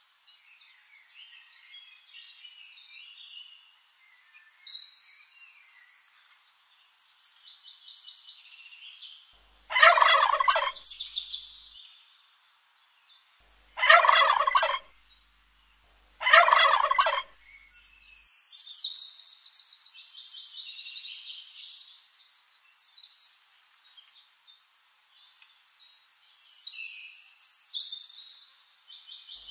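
Wild turkey tom gobbling three times, the gobbles about four and then two and a half seconds apart, with fainter high chirping of birds between them.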